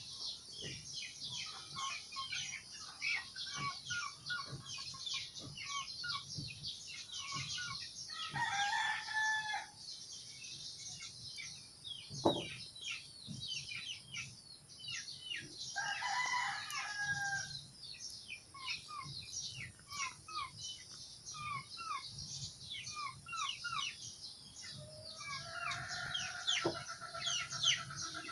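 A rooster crowing three times, about eight, sixteen and twenty-five seconds in, the last crow the longest. Underneath runs a constant dense chorus of quick, high chirps, and there is one sharp tap about twelve seconds in.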